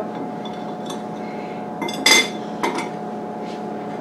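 Knife and fork clinking on a plate while a piece of French toast is cut: three short clinks about two seconds in, the middle one loudest, over a steady background hum.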